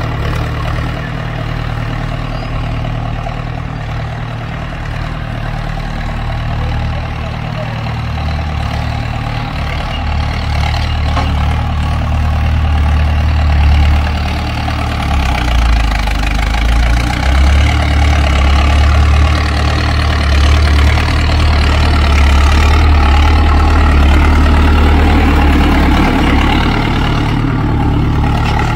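Diesel farm tractor engine running steadily under working load, a deep continuous hum that grows louder about halfway through.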